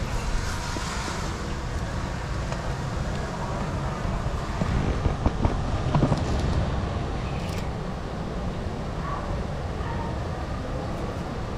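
A cat chewing and eating wet food at close range, with faint clicking mouth sounds, over a steady low background rumble outdoors.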